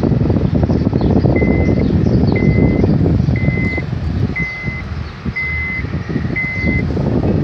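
An electronic warning beeper sounds six times, short even beeps at one pitch about once a second, over the loud low rumble of a moving car heard from inside the cabin, with wind on the microphone.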